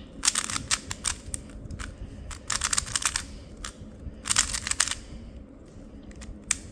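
Plastic 3x3 speed cube being turned by hand during a solve: quick runs of clicking as the layers turn, with short pauses between runs and scattered single clicks near the end.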